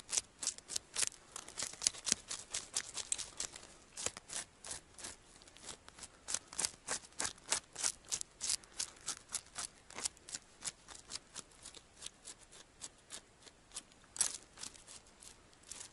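Table fork scraping the scales off a small bream: quick repeated scraping strokes, about three a second, thinning out near the end.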